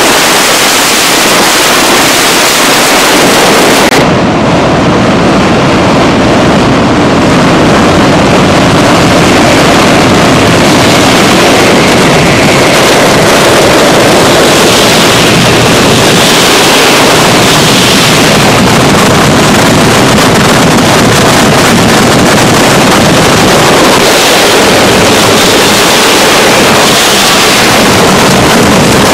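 A very loud, dense barrage of ground-level firecrackers going off so fast that the bangs merge into one continuous roar.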